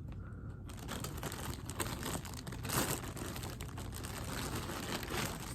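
Plastic packaging crinkling and rustling as it is handled, a continuous stream of small crackles starting about half a second in.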